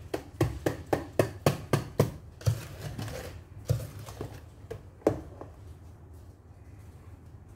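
Wire whisk clattering against the side of a metal pot as a sugar and butter mixture is beaten, about four strikes a second at first, then slower, stopping about five seconds in. A low steady hum runs underneath.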